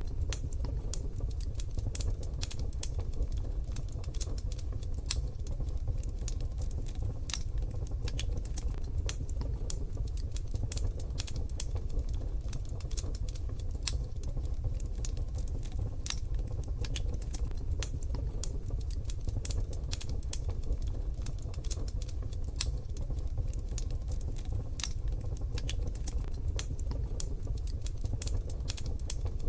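Wood fire in a wood-burning stove crackling: dense, irregular sharp pops and snaps over a steady low rumble.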